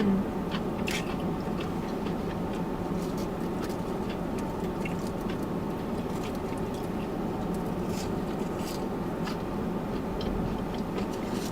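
Close-miked eating sounds: chewing with small wet mouth clicks scattered throughout, over a steady low background hum.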